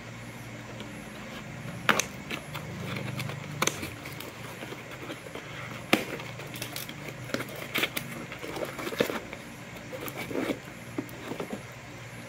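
Cardboard box being cut open with a blade and pulled apart by hand: scraping and crackling with a series of sharp knocks and taps, the loudest about two, three and a half and six seconds in, over a steady low hum.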